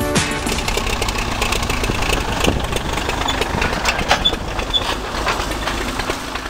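Farm machinery engine running, with a steady low rumble and a constant clatter of small rattles and clicks from the working parts.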